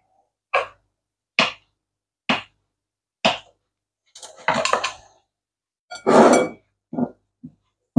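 Kitchen knife chopping boiled potatoes on a wooden chopping board: four knocks about a second apart. Then scraping and clatter as the cubes are pushed off the board into a glass bowl, the loudest scrape a little after halfway, followed by two light knocks.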